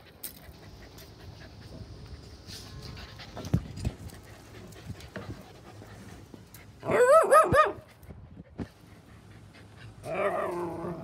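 Siberian husky puppy whining: one loud call with a fast-wobbling pitch about seven seconds in, and a softer, falling whine near the end, with faint scattered clicks between.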